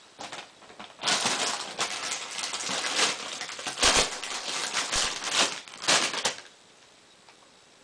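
A soft plastic package being crinkled and crumpled in a baby's hands: a few faint crinkles, then about five seconds of loud, uneven crackling and rustling that stops abruptly.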